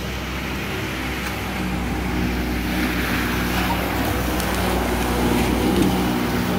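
Speedboat outboard motor running at speed as the boat approaches and passes close by, its steady engine note growing louder, with the hiss of water thrown up by the hull.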